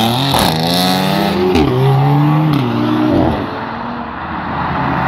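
A car accelerating hard away, its engine revs climbing and then dropping at gear changes about a second and a half in and again near three seconds, before the sound falls away as it drives off.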